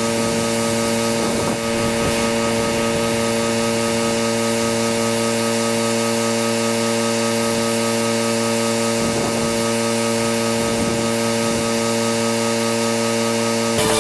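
Pressure washer running steadily: the even hum of its engine and pump under the constant hiss of the water spray.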